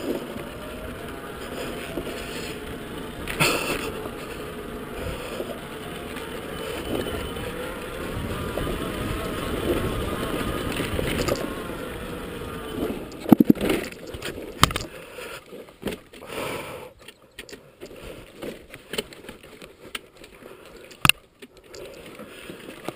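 Dirt bike rolling down a dirt trail, a steady rumble for about the first 13 seconds. Then the rumble drops away into scattered sharp knocks and clicks, the loudest about 21 seconds in.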